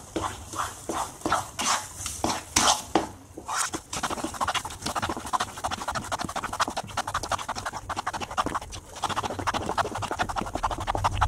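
Wooden spatula stirring thick moong dal halwa in a nonstick pan, scraping the pan and squelching the mixture while the added sugar melts in. At first the strokes come about twice a second; from about four seconds in they run together into a denser, continuous scraping.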